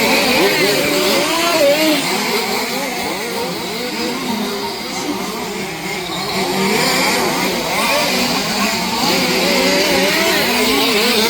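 Several 1/5-scale two-stroke petrol RC off-road cars racing together, their engine notes rising and falling over one another as they rev up and ease off.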